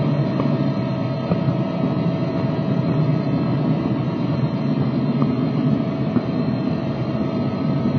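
DCC sound decoder in a model Class 66 diesel locomotive playing the Class 66's diesel engine sound through its small onboard speaker, running steadily as the model moves along the track.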